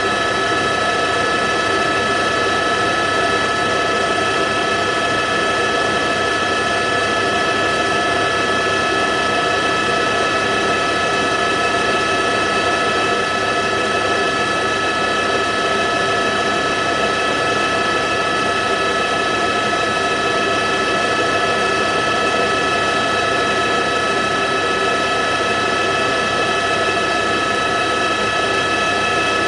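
Helicopter running steadily in flight, heard from on board: a constant whine of several steady high tones over an even rush of engine and rotor noise.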